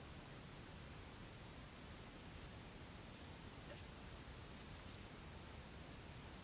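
Short, high chirps of a small bird, about five of them spread through, the clearest about three seconds in and near the end, over a faint steady outdoor background hiss.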